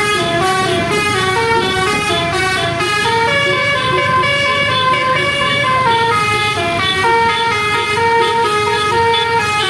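Basuri telolet bus horn, a multi-note musical air horn, playing a quick tune of short held notes that step up and down without a break.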